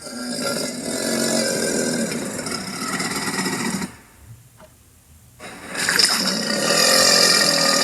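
Cartoon alligator's vocal sound effects: a long, rough vocalization of about four seconds, a short pause, then another of about two seconds.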